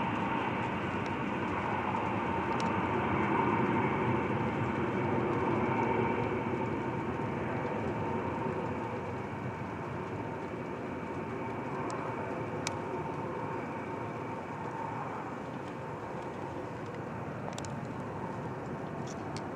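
Four-engined Boeing 707-based E-3 AWACS jet on approach, its TF33 turbofans giving a steady rumble with a faint whine, slowly fading as the aircraft flies away.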